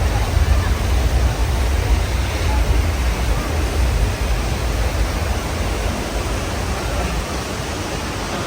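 Staged earthquake-and-flood effects on a studio soundstage: a steady rush of water with a heavy, deep rumble beneath it, easing off near the end.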